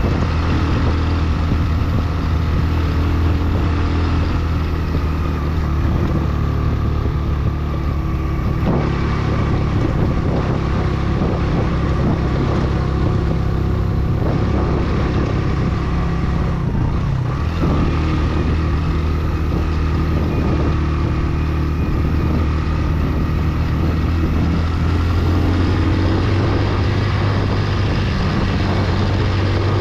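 Motorcycle engine running continuously under changing throttle, its pitch dropping and picking up again a few times.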